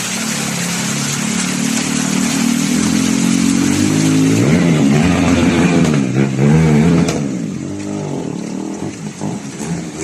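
A vehicle engine revving as it pushes through floodwater. Its pitch climbs steadily for about four seconds, then wavers up and down before falling away near the end, over a steady hiss of rain and water.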